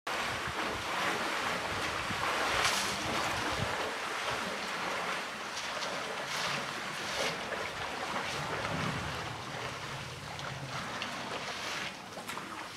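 African bush elephants drinking in a shallow waterhole: water splashing and sloshing around their trunks and legs, with irregular louder splashes.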